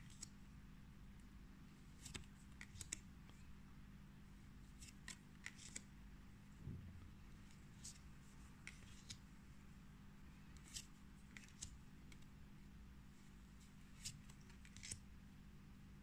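Magic: The Gathering trading cards handled one by one: soft, scattered clicks and short scrapes as cards slide off the stack, about a dozen over the stretch, over a faint steady hum.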